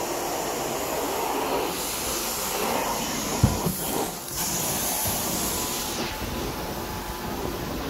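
Carpet-cleaning extraction wand drawn over carpet: a steady rush of vacuum suction with hiss. The high hiss grows stronger about two seconds in and drops back near six seconds.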